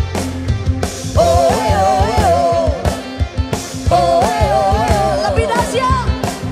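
Live worship band playing an Indonesian praise song, with a female lead singer carrying the melody over drums and bass. She sings two sustained phrases, one starting about a second in and another about four seconds in.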